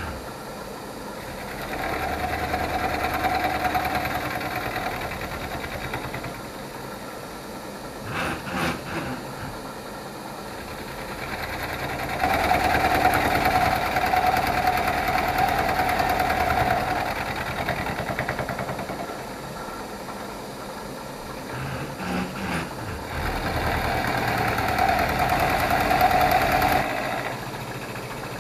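Milling machine end mill taking light cuts across a small round shaft. Three cuts of a few seconds each, about 2, 12 and 23 seconds in, each with a steady whine over the spindle's running. Between them the machine runs quieter, with a couple of short knocks.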